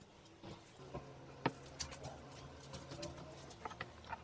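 Light, scattered knocks and taps of small plywood blocks being handled and set down on a plywood worktop, the sharpest about a second and a half in, over a faint steady hum.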